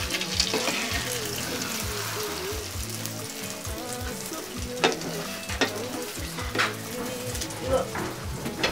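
Omelette sizzling in a frying pan while a spatula works it. The spatula scrapes and taps against the pan several sharp times in the second half.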